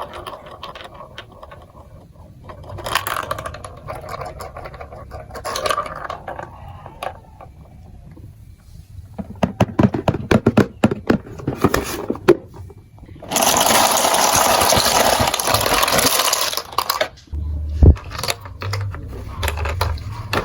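Handling of a plastic marble run building block set: packaging rustling, then a quick run of small plastic pieces clicking and clattering about halfway through, followed by about four seconds of loud steady rustle and clatter, and one sharp thump near the end.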